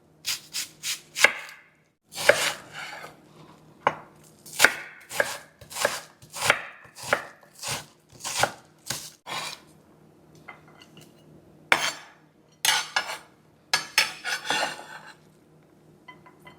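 Kitchen knife chopping an onion on a cutting board: single sharp strokes coming irregularly, about one or two a second, with a short pause midway and then a quicker run of cuts.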